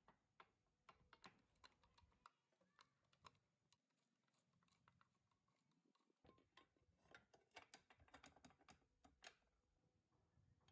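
Near silence broken by faint, irregular small clicks and taps, more frequent in the second half.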